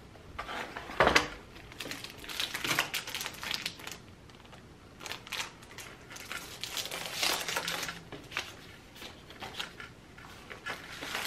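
Rustling and crinkling of a canvas tote bag and a clear plastic bag being handled, in irregular bursts, loudest about a second in.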